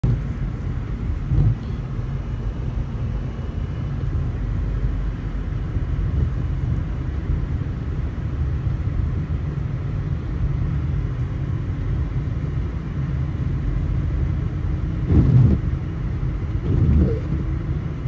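Steady low rumble of a car's engine and tyres on a snow-covered road, heard from inside the cabin at low speed. A few brief louder bumps stand out, the loudest a little before the end.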